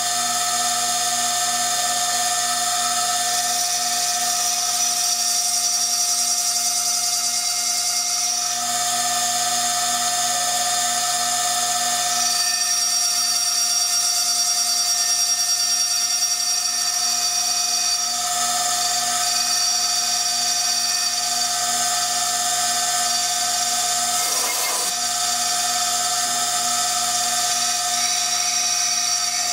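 High-speed spindle of a CNC milling machine whining steadily as a sharp cutter engraves the glass of a beer bottle, its high pitch stepping slightly a few times. A brief scratchy burst comes about five seconds before the end.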